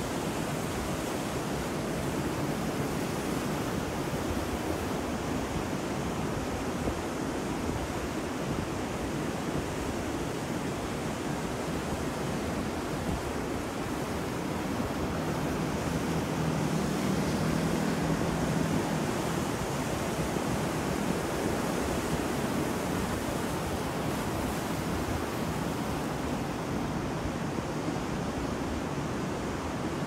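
Ocean surf breaking and washing onto a beach: a continuous rush of wave noise that swells a little louder for a few seconds past the middle.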